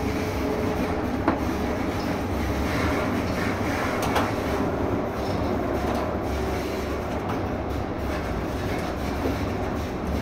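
Brussels premetro tram running through an underground tunnel: a steady rumble of wheels on rail, with two sharp clicks about one and four seconds in.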